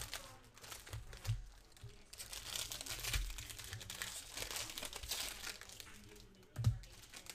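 Foil trading-card pack wrappers being torn open and crinkled by hand, with a dull knock near the end.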